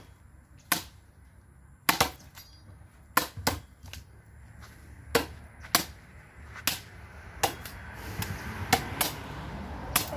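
Machete (corvo) blade striking a piece of wood held upright, chopping to split it for firewood: about a dozen sharp, separate blows at an uneven pace, some in quick pairs.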